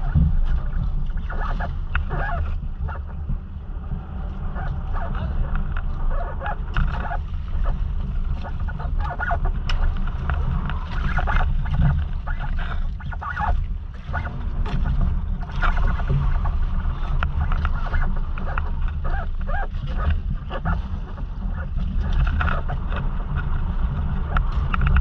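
Motorized outrigger fishing boat under way: the engine drones steadily, with water and wind rushing past the hull.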